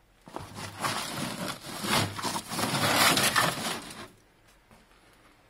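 Canvas sheet and plastic bin bags rustling and crinkling as they are pulled aside by hand. The rustling stops suddenly about four seconds in.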